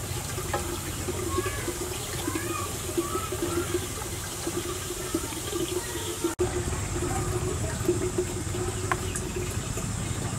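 Water simmering in a metal cooking pot over a wood fire, a steady bubbling hiss, with a brief dropout a little past halfway.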